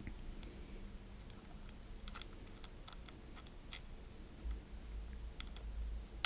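Scattered small, light metal clicks and ticks as small acorn locking nuts are handled and threaded by hand onto the bolts of a hand air deflector's mounting bracket. A low rumble comes in about four and a half seconds in.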